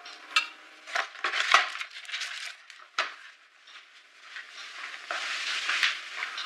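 A few light clinks and knocks of small objects being handled, then a stretch of rustling about five seconds in.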